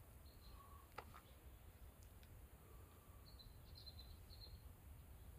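Near silence: a faint low rumble with one sharp click about a second in and a few faint high chirps past the middle.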